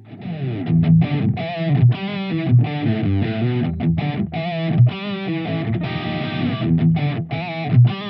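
SQOE SETL450 HH electric guitar, its Alnico humbucking pickups played through an overdriven drive tone, playing a fast picked rock riff of low chugging notes broken by many short, sharp stops.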